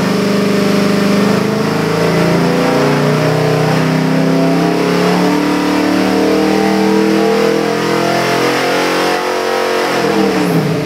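Chrysler 440 big-block V8 pulling under load on an engine dynamometer, its revs climbing steadily from about 3,000 to about 5,400 rpm. Near the end the throttle closes and the revs fall away.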